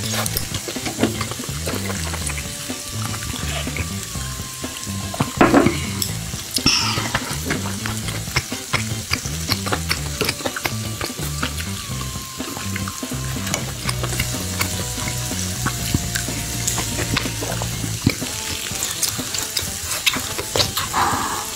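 Beef sizzling and crackling on a tabletop grill pan, with low stepped tones of background music underneath.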